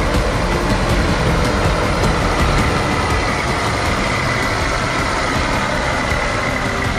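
Claas Xérion 5000 tractor's engine running hard, pulling a plough, with a steady high whine that comes in a few seconds in.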